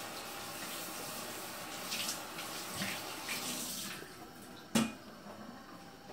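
Small plastic toy figures being set down and moved on a granite countertop, giving a few light clicks and one sharp click near the five-second mark. Under them, a steady rushing hiss stops about four seconds in.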